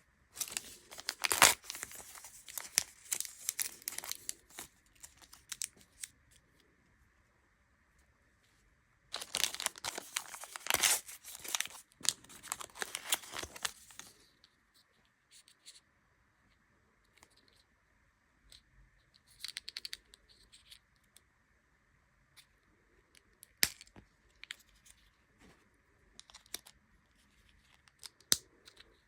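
Thin plastic wrappers from Mini Brands miniatures crinkling and tearing open in two long bursts, followed by scattered light clicks and rustles of small plastic pieces being handled.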